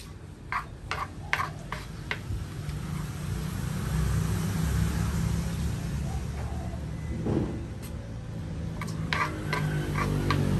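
Light clicks and taps of a plastic spoon on a clay mortar and foam takeaway box, in a quick cluster near the start and again near the end. Under them, a low engine rumble from passing road traffic swells from about three seconds in.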